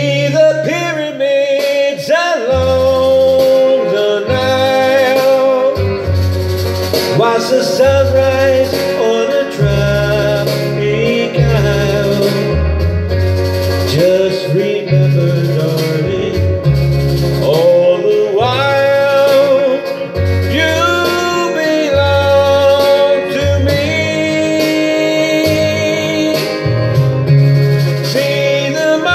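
A man singing a country song into a handheld microphone over backing music with guitar and a stepping bass line, holding some notes with vibrato.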